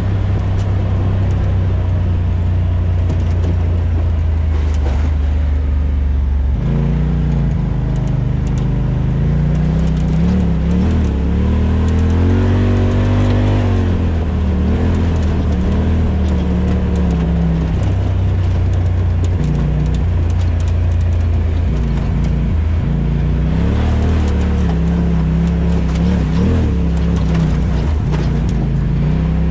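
Off-road vehicle engine running while being ridden. It holds steady at first, then from about seven seconds in it revs up and down, its pitch rising and falling several times.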